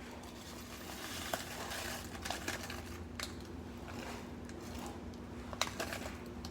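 Oatmeal packaging crinkling as it is handled, with scattered light clicks and taps, over a steady low hum.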